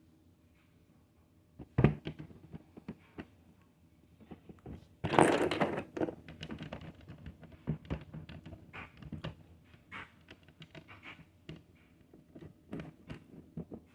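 Plastic Lego pieces being handled: a string of small clicks and knocks, with a sharp knock about two seconds in and a louder clatter of pieces about five seconds in.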